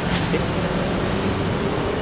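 Steady kitchen ventilation noise: an even hiss over a low hum, with one brief tick about a tenth of a second in.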